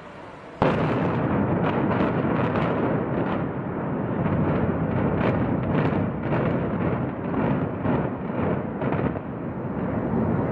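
Explosive demolition of a high-rise tower: a sudden blast about half a second in, then a continuous heavy rumble of the collapse with an irregular series of sharp bangs from the charges, the bangs thinning out near the end.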